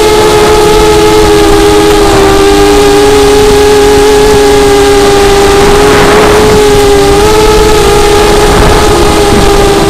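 Motor and propeller of a small FPV model plane, heard close from its onboard camera: a steady, loud buzz whose pitch dips and rises slightly with throttle, over a rush of wind noise.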